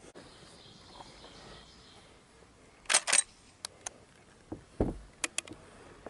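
Metallic clacks and clicks from handling a Winchester 1866 lever-action rifle, with no shot fired. A pair of sharp clacks comes about three seconds in, followed by several lighter clicks and a dull low thump near five seconds.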